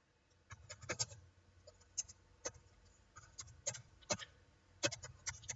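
Computer keyboard keys clicking as an email address is typed: short, irregular keystrokes, some in quick runs, starting about half a second in.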